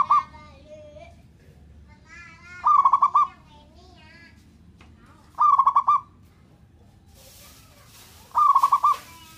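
Zebra dove (perkutut) singing its fast stuttering coo: a loud burst of quick notes roughly every three seconds, heard three times after the tail of one at the start. Fainter bird chirps fill the gaps between the bursts.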